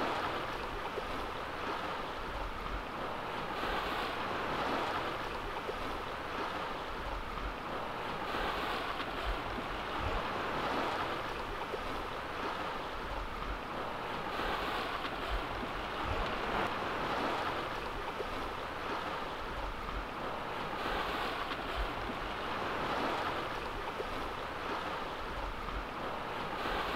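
Sea water rushing and splashing along the hull of a Hanse 445 sailing yacht cruising under sail, a steady wash that swells and eases every few seconds, with wind buffeting the microphone.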